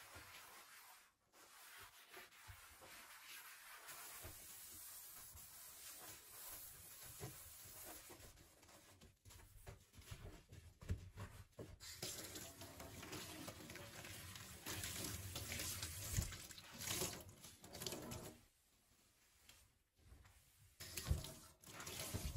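Tap water running into a sink, with the flow heavier in the second half and stopping briefly about three-quarters through; a few sharp knocks near the end.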